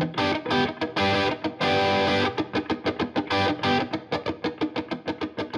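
Intro music: distorted electric guitar playing fast, rhythmic picked notes with a couple of held chords.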